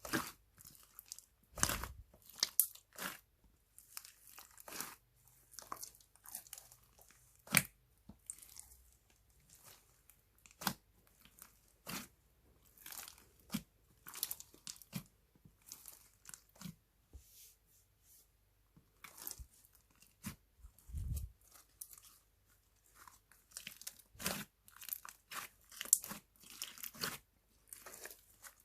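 Slime being worked by hand, squished and pressed, with irregular crackling pops and sharp clicks.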